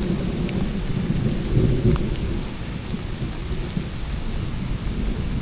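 Rain falling steadily, with a heavy low rumble underneath.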